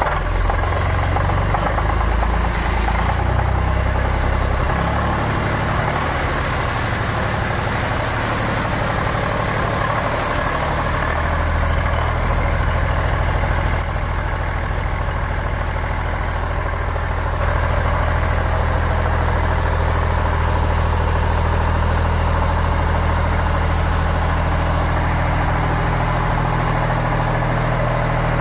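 Eicher three-cylinder diesel generator engine, just started with the key, running steadily while driving its alternator. The low engine note shifts slightly a few times.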